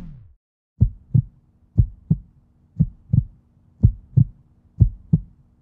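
Heartbeat sound effect: paired lub-dub thumps, about one pair a second, over a faint steady low tone. A low boom dies away at the very start.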